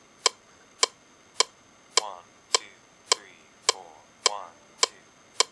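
Studio metronome click track ticking at a steady tempo, a little under two clicks a second, as a count-in before a bluegrass take.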